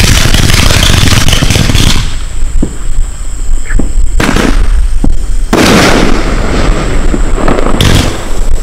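A 118-shot consumer fireworks cake firing, with shots launching and bursting in rapid succession. Sharp bangs come between longer stretches of dense crackle.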